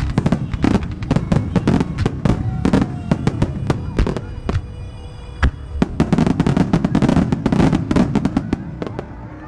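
Japanese starmine fireworks barrage: rapid volleys of launches and shell bursts, many sharp bangs close together. The bangs thin out a little in the middle, come back as a dense barrage about six to eight seconds in, and die away near the end.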